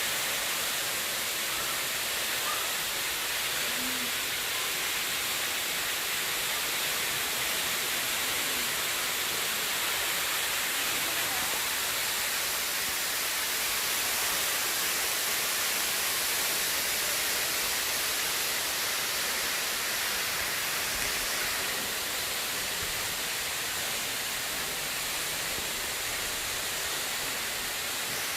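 Waterfall: a steady, unbroken rush of falling water, hissy and even throughout.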